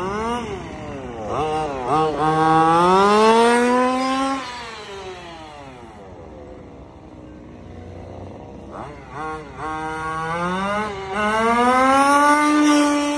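1/5-scale FG Formula One RC car's small two-stroke petrol engine running at high revs, its pitch climbing steadily after a few quick throttle blips. It fades as the car moves away, then comes back about nine seconds in and climbs again, loudest near the end.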